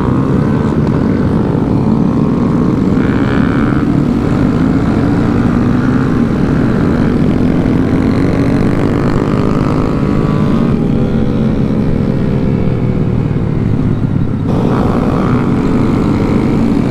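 Small mini-motorcycle engines, the rider's own Honda Grom among them, running steadily at cruising speed in a group ride. About ten seconds in, one engine's revs dip and then climb again.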